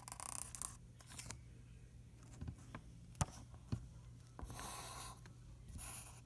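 Black felt-tip marker drawing on a paper calendar: four short scratchy strokes, two of them close together near the end as an X is drawn, with two light taps in between.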